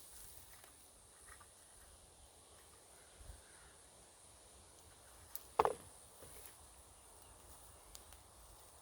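Faint outdoor background with a steady high insect-like hiss, broken a little past halfway by one short sharp knock, with a couple of much softer taps around it.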